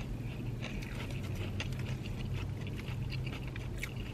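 Chewing and crunching of Hot Cheetos chips: many small, irregular crisp clicks over a steady low hum.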